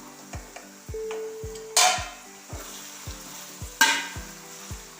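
Sliced onions sizzling as they fry in hot oil in a pan, stirred with a spatula, with two louder scrapes against the pan, about two and four seconds in.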